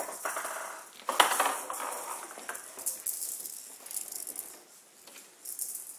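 Showdown ball, a plastic ball with metal beads inside, rattling as it rolls and bounces along the table, with one sharp loud knock about a second in.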